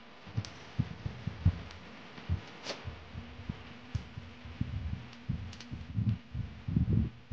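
Irregular dull thuds and knocks, with a few sharp metal clicks, as a metal motorcycle handlebar is handled and fitted onto the fork top. The thuds come thickest near the end.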